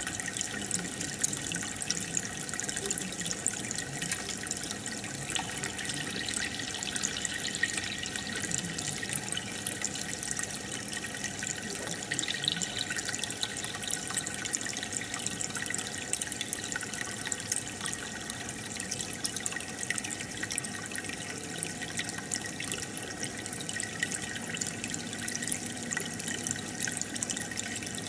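Aquarium water bubbling and trickling: a steady stream of small pops and splashes as air bubbles rise from an air stone and the filter turns the water over.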